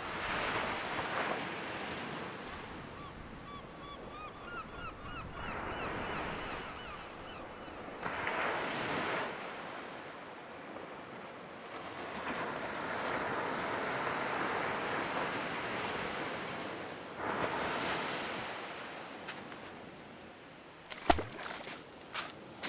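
Ocean surf washing onto a beach in slow swells, with wind. There is a short run of quickly repeated bird calls a few seconds in, and a few soft knocks near the end.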